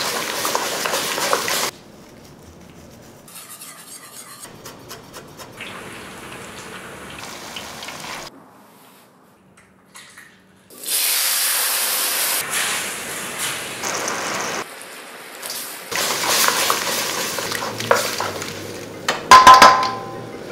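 Wok cooking sounds: sauce-coated cauliflower sizzling and being tossed with a wooden spatula, with quieter stretches of handling between. A loud steady sizzling hiss comes about 11 seconds in and lasts a few seconds. Near the end there is a loud clatter in the wok with a brief ring.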